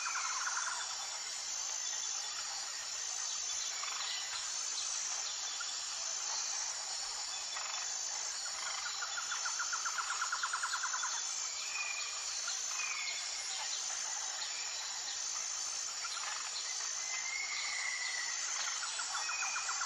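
Tropical jungle ambience: a constant high-pitched drone of insects with a steadily repeating short note above it. Birds give short whistled calls, and a rapid, even trill comes in about halfway through and again near the end.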